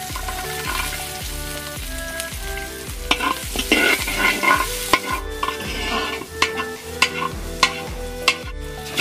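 Sliced onions and garlic sizzling in hot oil in a wok. From about three seconds in, a spatula scrapes and clicks against the wok as it stirs them. Background music plays underneath.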